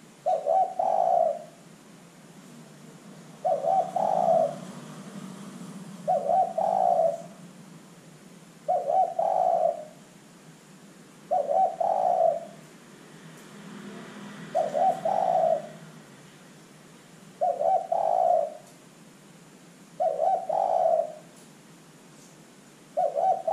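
A spotted dove cooing: nine short phrases, each about a second long, repeated evenly every two and a half to three seconds.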